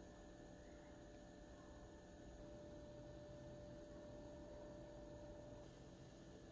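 Near silence: faint room tone with a steady, faint hum.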